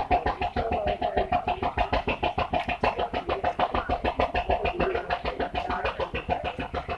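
An engine running at a steady idle with an even, fast thudding beat of about six a second.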